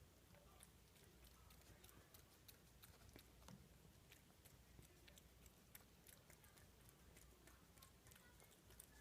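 Faint chewing: small irregular clicks and crunches of eating, close to near silence.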